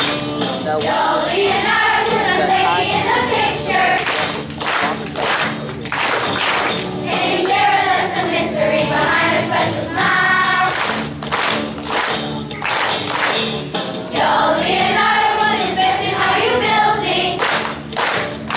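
Children's choir singing an upbeat song with musical accompaniment, clapping along in time to a steady beat.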